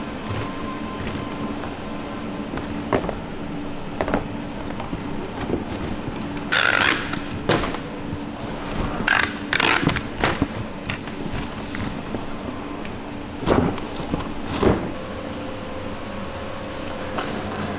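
Food-factory production machinery running with a steady low hum, broken by scattered sharp clacks and knocks and a few short hissing bursts, the first about six and a half seconds in.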